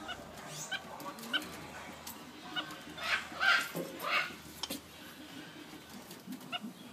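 Capuchin monkeys giving short, high squeaking calls, some sliding upward, with a louder cluster of calls about three to four seconds in.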